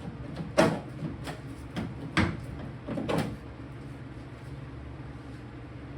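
A handful of sharp knocks and rattles as a 1966 Mustang tail light assembly is worked loose and pulled from the car's rear body. The loudest knocks come just over half a second in and just after two seconds.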